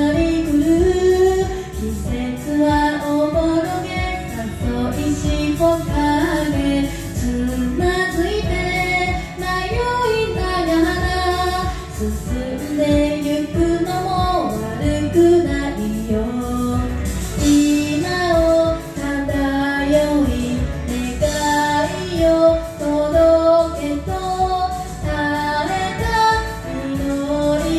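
A woman singing a Japanese pop song over a karaoke backing track, the melody wavering and held on long notes.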